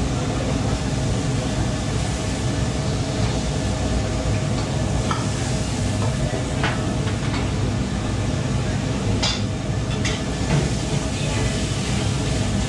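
Stir-frying in a wok on a restaurant wok range: food sizzling over a steady rush of burner and extraction-hood noise, with a few sharp clinks of metal on the wok.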